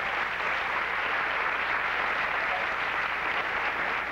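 Audience applauding steadily for a pageant finalist who has just been announced.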